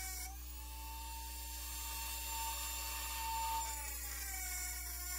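Dremel rotary tool with a small abrasive cut-off wheel whining at high speed as it grinds a slot into a steel guitar bridge plate, throwing sparks. A hiss of grinding metal comes in about a third of a second in and fades out around four seconds in, while the motor's pitch shifts slightly.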